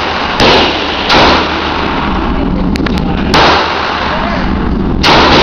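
Four gunshots at a shooting range, fired at uneven intervals about a second in, at one second, past three seconds and near the end, each with a short echoing tail, over steady background noise and a few faint sharp cracks in between.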